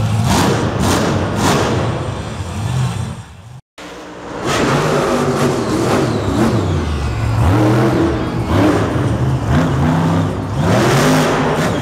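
Monster truck's supercharged V8 engine revving hard again and again, pitch rising and falling; the sound cuts out for a moment a few seconds in, then a second truck's engine revs on.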